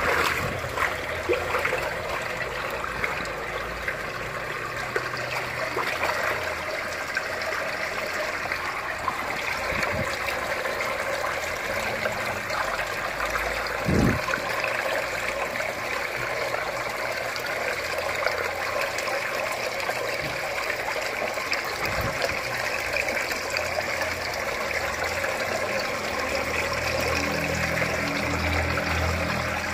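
Water running and trickling steadily in an aquaponics fish tank. There is splashing near the start as red tilapia thrash in a dip net, and a single thump about 14 seconds in.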